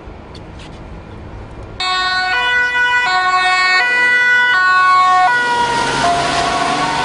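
Quiet street noise, then about two seconds in a Dutch ambulance's two-tone siren starts, switching between a high and a low note roughly every three-quarters of a second. Near the end the siren's pitch drops as the ambulance drives past close by, with the rush of its engine and tyres.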